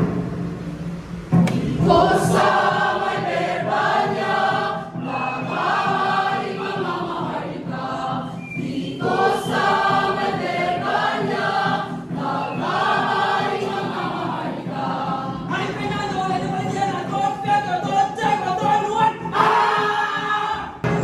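A choir singing a slow song, several voices together in phrases a second or two long.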